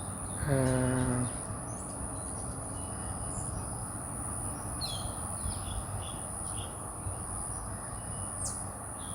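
Outdoor ambience: a steady high-pitched insect drone with scattered bird chirps. A short low hum comes about half a second in.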